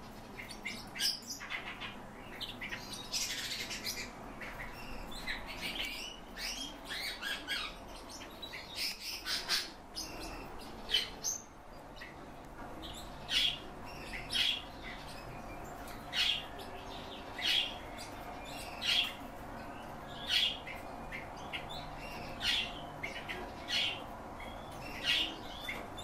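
Caged red-billed leiothrix (Chinese nightingales) calling. There is a run of varied chirps and twitters in the first half, then a short call repeated over and over, a little more than a second apart.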